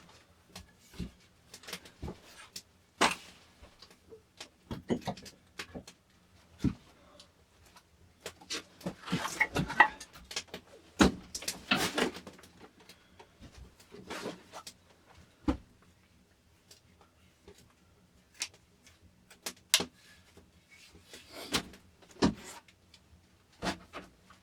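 Irregular knocks and clicks from hand work, with a few longer stretches of scraping or rustling about halfway through.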